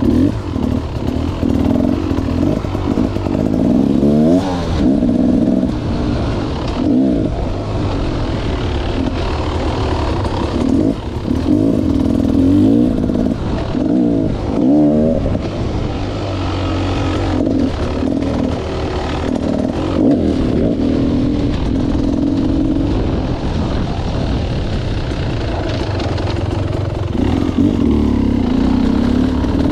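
Beta Xtrainer 300's two-stroke single-cylinder engine running as the dirt bike is ridden, the revs climbing and dropping repeatedly as the throttle is worked, with the sharpest swells about four and fourteen seconds in.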